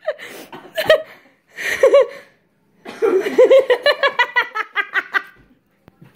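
Hard, breathless laughter in bursts: a few short laughs and gasps, a pause, then a long run of quick laughs about three seconds in.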